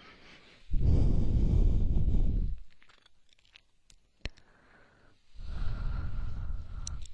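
ASMR breathing close into the microphone: two slow, heavy breaths about two seconds each, the first louder, with faint mouth clicks in the pause between them.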